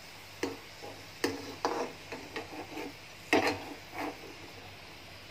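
Metal spoon knocking and scraping against a steel kadai while fried papad is lifted out of the oil: a string of irregular clinks, the loudest about three and a half seconds in.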